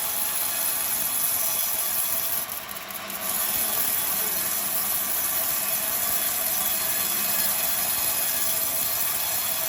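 Sawmill band saw running with a steady hiss-like whine, with a brief drop in its high end about two and a half seconds in.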